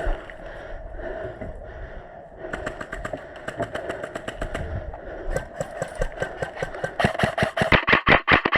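Krytac LVOA-S airsoft electric rifle firing a quick string of shots, about six or seven sharp clacks a second, loudest from about seven seconds in. Fainter rapid clicking of gunfire comes before it.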